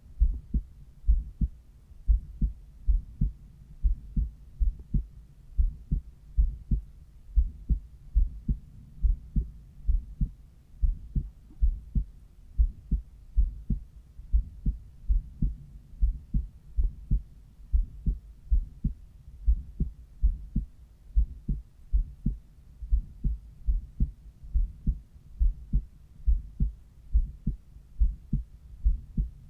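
Human heartbeat heard through a cardiology stethoscope over the pulmonary valve area: a steady rhythm of low thumps, each beat a pair, about one beat a second.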